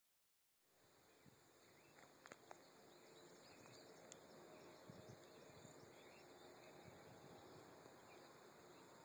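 Near silence: a faint, steady high hiss that cuts in about half a second in, with a few faint ticks around two seconds in.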